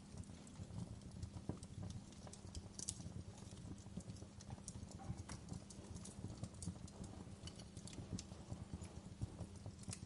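A wood fire crackling, with irregular small pops and snaps over a low steady rumble.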